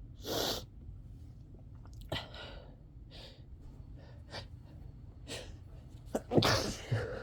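A person sneezing over and over in short bursts about a second apart, several of them stifled, the loudest and fullest sneeze about six seconds in.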